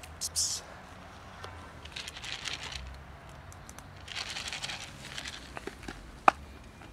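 Rustling and crinkling of a plastic cat-food container and its lid being handled, in several short spells, with a sharp click near the end.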